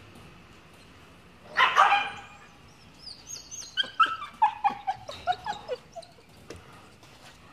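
A dog gives a loud bark, then a quick string of short, high yelps that step down in pitch.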